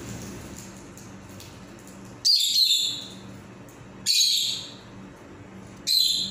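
Pet parrots giving three short, shrill chirping calls about two seconds apart, over a steady low hum.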